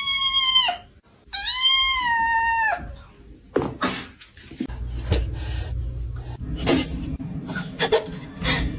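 A cat meowing twice in long, drawn-out meows, the second rising and then falling in pitch. After that come scattered light clicks and knocks.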